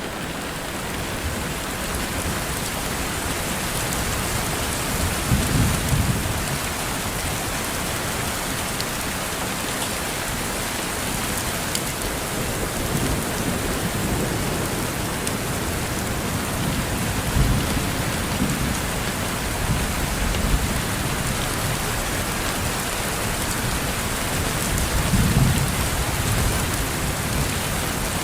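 Steady rain falling, with raindrops ticking against a window pane. Three brief low rumbles rise out of it, roughly a fifth of the way in, past halfway, and near the end.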